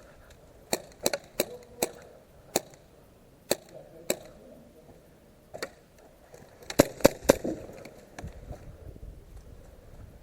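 Airsoft guns firing single shots, sharp irregular snaps spread over the first six seconds, then a quick string of about four louder shots around seven seconds in.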